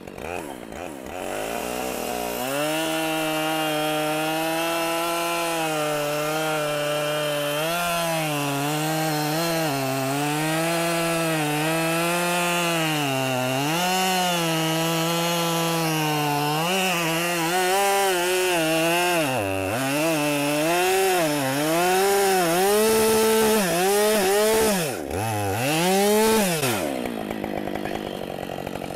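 Husqvarna 372 XP two-stroke chainsaw revving up and cutting through a large oak log, its engine pitch dipping and recovering again and again under the load of the cut, then dropping back to idle near the end. The chain strikes metal hidden in the wood, which the owner takes for a nail.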